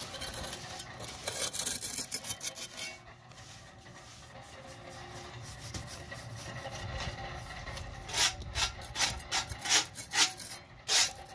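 Small steel trowel scraping along fresh, half-set cement render, cutting the joint lines between imitation stone blocks, with a paintbrush swept over the surface. The scraping comes in quick strokes: quieter through the middle, then a run of sharper scrapes near the end.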